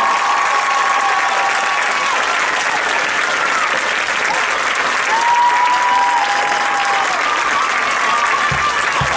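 Audience applauding and cheering, with drawn-out whoops rising above the clapping. A few low thumps come in near the end.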